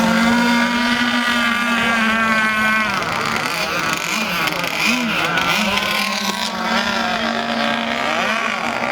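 Radio-controlled race boats' motors running on the water, their pitch rising and falling as the throttle changes, with several boats heard at once.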